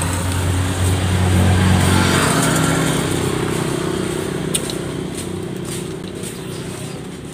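A motor vehicle's engine passing by: a low hum that is loudest about two seconds in, then fades away. A few faint clicks come later.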